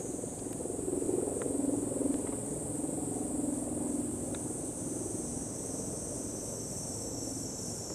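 Steady high-pitched insect chorus ringing from the trees, over a low background murmur.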